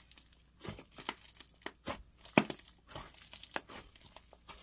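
Black slime with clay mixed in being squeezed, folded and pressed by hand, giving irregular crackly pops and crinkles: the light, sizzly sound of a clay-fizz texture.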